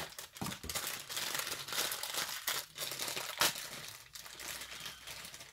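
Packing material crinkling and rustling as hands dig through a cardboard mail box to pull out the next boxed vinyl figure, with irregular crackles and sharp ticks.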